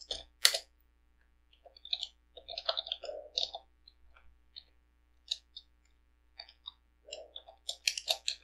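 Computer keyboard typing: irregular keystroke clicks coming in quick runs, sparse through the middle and thickest near the end.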